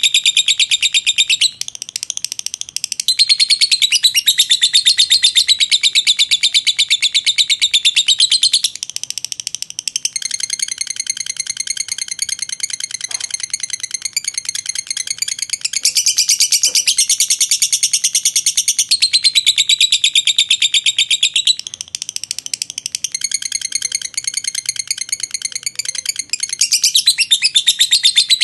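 Fischer's lovebird giving a long ngekek: one unbroken, very rapid, high-pitched chattering trill that swells louder and drops softer several times without a pause. This is the long 'ngekek panjang' song prized in lovebird song contests.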